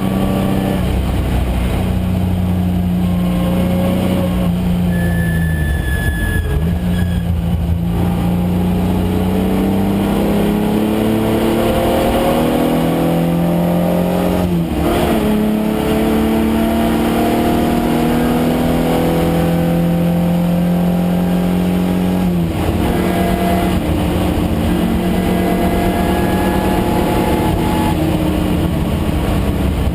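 Datsun 510 wagon's swapped-in 3.0-litre VG30 V6 running hard on track. The revs climb steadily in long pulls and drop suddenly three times, then fall away again near the end.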